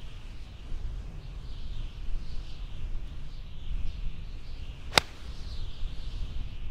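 A single sharp click of a 6-iron striking a golf ball about five seconds in, over a steady low rumble of wind on the microphone.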